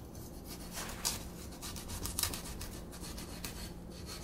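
Kitchen knife sawing and stabbing through a soft, aging carved pumpkin's shell: a series of irregular scraping strokes.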